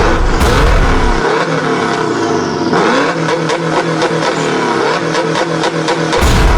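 Car engine revving up and down as it accelerates, its pitch sliding repeatedly. A deep boom dies away about a second in, and another hits near the end.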